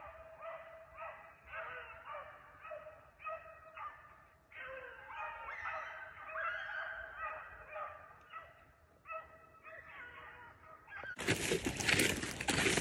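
A pack of beagles baying on a rabbit's track, many short calls in quick succession as the hounds stay on the scent. About 11 seconds in, a loud rustle of dry grass and brush close to the microphone covers them.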